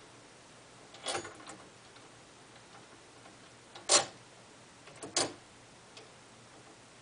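Three sharp metal clicks as the lead screw shaft is worked into the keyed clutch dog of an Atlas 9-inch lathe's feed-reverse gearbox. The first comes about a second in, the loudest about four seconds in, and the last just after five seconds.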